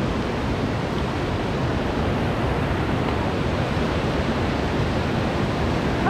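Steady rush of white-water river rapids, an even noise without breaks.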